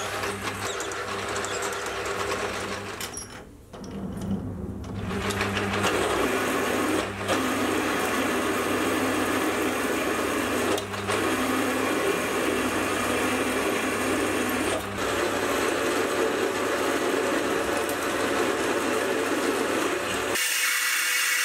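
Metal lathe running with a twist drill cutting into the end of a spinning solid steel bar: a steady motor hum with cutting noise over it. The hole is being opened up step by step with larger drills. The sound dips and drops out briefly a few times, and the low hum stops shortly before the end.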